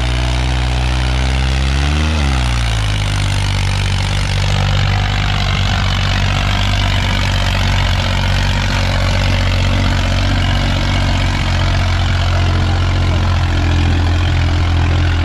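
Tractor diesel engine of a New Holland 3630 running steadily under load while pulling a disc harrow through ploughed soil, with a brief shift in engine pitch about two seconds in.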